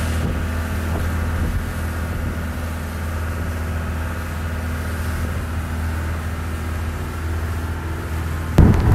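A small fishing boat's engine running steadily underway, a low droning hum over the rush of water along the hull. Near the end it turns louder and rougher with wind on the microphone.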